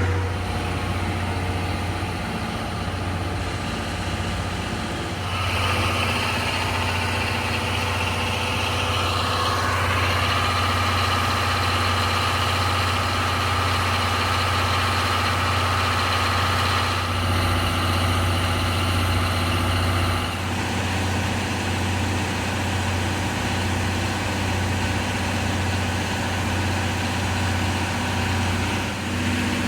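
A heavy engine running steadily at idle with a strong low hum; a higher, busier mechanical sound joins about five seconds in and drops away around twenty seconds.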